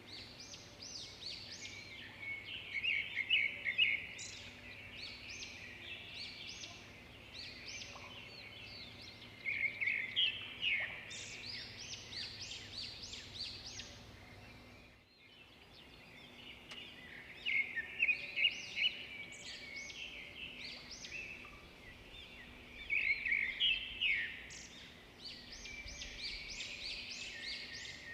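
A flock of small birds chirping and twittering together in dense, rapid calls. The calls swell into louder bursts every several seconds, with a brief break about halfway through.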